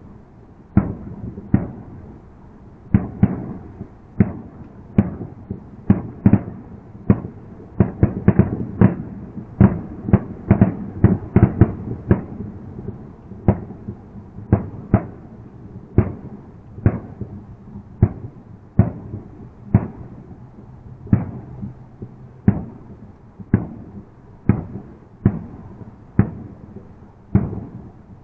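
Aerial fireworks going off in a long run of sharp bangs, each with a short trailing rumble. They come thickest about a third of the way through, then settle to roughly one bang a second.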